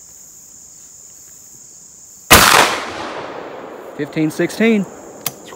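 A single shot from a 12-gauge single-shot shotgun firing a 460-grain hollow-point slug, about two seconds in: one sharp, loud report that echoes and fades over about a second. A steady high insect chirr runs underneath.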